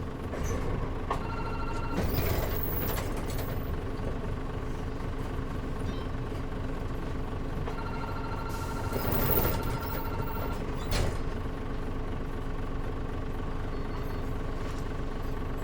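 Mitsubishi Fuso KL-MP37JM bus engine idling steadily at a stop, with the air conditioning off. Over it come short electronic beeps twice, a brief rushing noise around the middle, and a couple of clunks as fares are paid and passengers get off.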